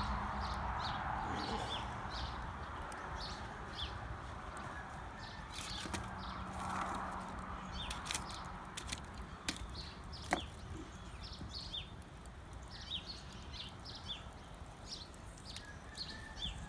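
Small birds chirping, short high calls repeating every second or so, over a low steady rumble, with a few sharp clicks.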